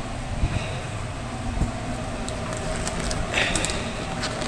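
Steady low mechanical hum of food-truck equipment, with a few light clicks and a brief rubbery rustle about three and a half seconds in as a nitrile glove is pulled at.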